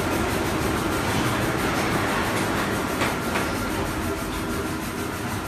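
Magnesium oxide board production line machinery running, a steady mechanical rumble and clatter, with two sharp clicks about three seconds in.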